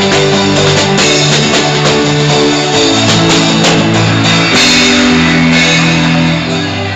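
Live church band playing under the prayer: long held chords with guitar, a drum kit and cymbal strikes.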